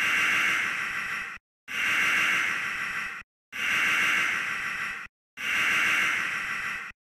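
Alarm clock alarm going off in repeated bursts of about a second and a half, separated by short silences, about four times. Each burst is a dense high-pitched ring that starts at its loudest, fades a little, then cuts off sharply.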